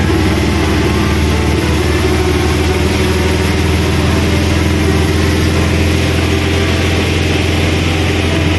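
An autorickshaw's small engine runs steadily, heard from inside the passenger cabin, under a constant hiss of rain and tyres on the wet road.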